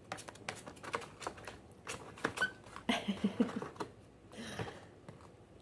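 Irregular light clicking, tapping and scratching of cockatiels' feet and beaks moving on a brown paper bag.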